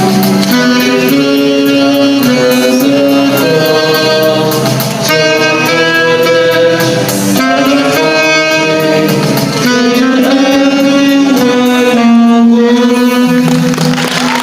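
Instrumental music of a proposed institute anthem: a melody of held notes, changing about every half second to a second, over a steady light beat.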